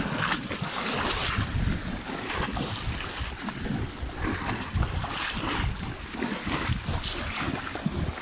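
Wind buffeting the microphone over shallow seawater splashing and sloshing irregularly.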